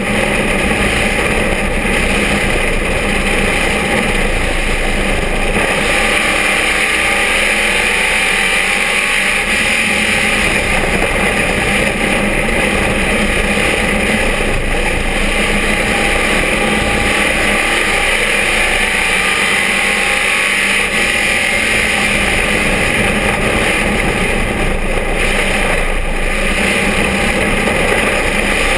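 Dirt-track stock car's engine running hard under racing load, heard from inside the cockpit as a loud, steady drone. Its pitch rises and falls slowly as the car goes through the corners and down the straights.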